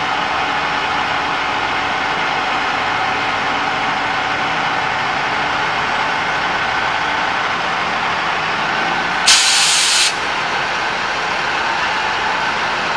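Caterpillar 3208 V8 diesel running with its PTO-driven hydraulic pump whining steadily as the Prentice crane boom is retracted and lowered. About nine seconds in, a loud hiss of compressed air lasts under a second and cuts off sharply, typical of the truck's air brake system venting.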